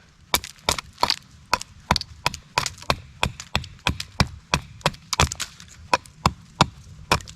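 A Becker BK2 fixed-blade knife cutting into a hardwood stick, trimming it into a baton: a regular run of short, sharp woody cuts, about three a second.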